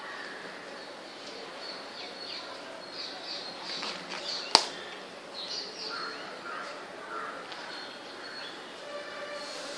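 Birds chirping in the background, with a single sharp click about halfway through.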